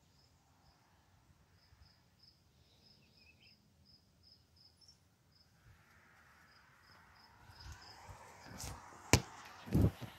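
Faint insect chirping, a short high chirp repeating about twice a second. From about six seconds in, rustling builds, ending in a sharp click and a couple of dull thuds as the camera is moved past a door frame.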